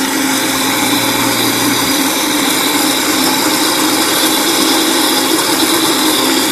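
Electric blender running steadily, whipping a soy lecithin mixture into a foam.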